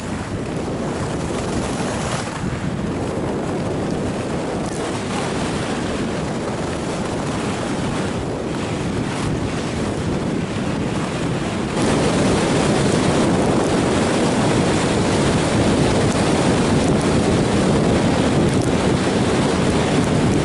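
Wind rushing over the action-camera microphone, mixed with skis running over packed snow on a fast downhill run. It steps up and stays louder from about twelve seconds in as the skier speeds up.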